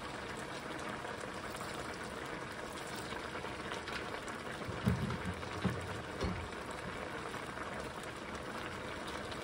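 Squid and tomatoes boiling in their sauce in a frying pan, giving a steady bubbling hiss. A few louder low pops come around the middle.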